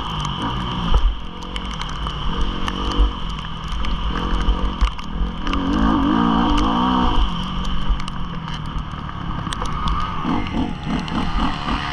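Motocross bike engine revving hard, its pitch climbing and dropping again and again as the rider works the throttle and gears, with wind rumbling over the helmet-camera microphone. Scattered sharp clicks run through it.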